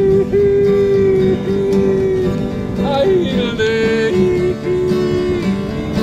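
Live acoustic folk band playing an instrumental passage: a fiddle holds long notes, some slid into, over strummed acoustic guitar.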